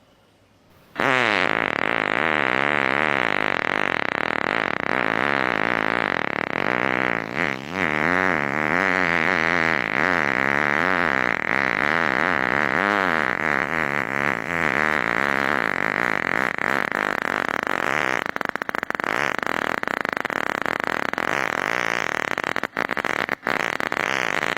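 A compilation of recorded fart sounds playing one after another, starting about a second in and running on without a break. The pitch wobbles up and down through the first half and turns rougher and hissier later, with a couple of sharp clicks near the end.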